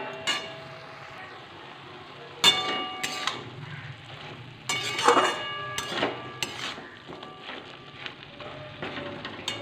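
A spatula stirring and scraping vegetables in a metal wok over a low sizzle of frying. Several clanks of the spatula against the pan ring briefly through the middle.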